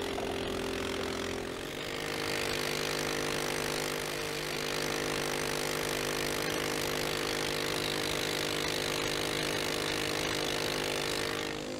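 Honda 270cc single-cylinder four-stroke go-kart engine running fast on a stand, driving the raised rear wheel through the belt drive. A raw chicken leg is pressed against the spinning belt and pulley, adding a harsh, steady rubbing hiss. Engine speed and noise rise about two seconds in and ease off near the end.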